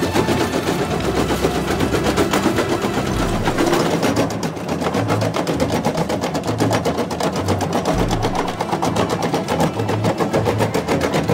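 Background music with a fast, even ticking beat and repeating bass notes.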